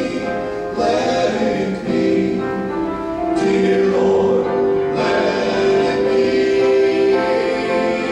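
Southern gospel male quartet singing a hymn medley, several men's voices together holding long notes.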